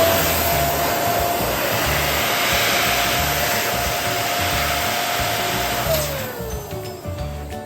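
Electric balloon pump running with a steady whine and a rush of air, then winding down and stopping about six seconds in.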